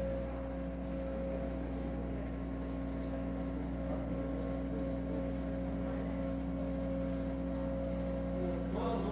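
A steady low hum made of several even tones, with a fainter steady higher tone above it that stops near the end.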